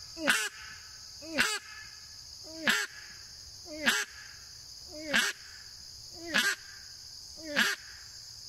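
Gillow Outdoors Weekend Warrior duck call blown in single quacks, seven short calls evenly spaced about a second apart, each swelling to its loudest at the end.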